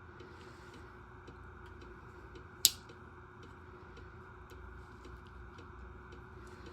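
Vintage folding pocketknife being handled: faint scattered clicks and one sharp loud click about two and a half seconds in, over a steady background hum.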